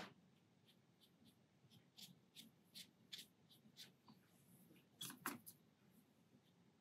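A thin rigger brush flicking quick strokes of watercolour across paper to paint fine grass blades: a series of faint short swishes, with a louder pair about five seconds in. A sharp click comes right at the start.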